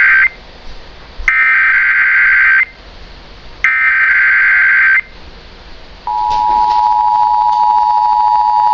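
Emergency Alert System broadcast: the tail of one burst of the SAME digital header, then two more burst repeats, each about a second and a half long with short gaps. About six seconds in, the steady two-tone EAS attention signal (853 and 960 Hz) starts and holds.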